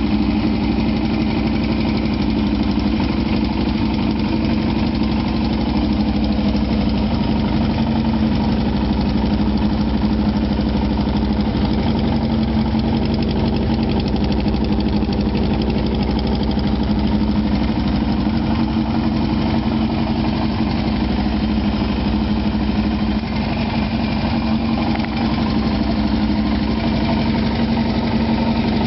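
1977 Kawasaki KZ1000's air-cooled inline-four engine idling steadily.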